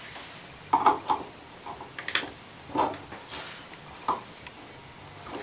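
A series of sharp clicks and light taps, about six spread over a few seconds, as the decorative cap is pried off a bathtub faucet knob.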